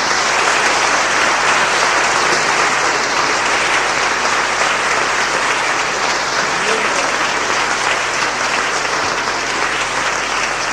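A congregation applauding steadily.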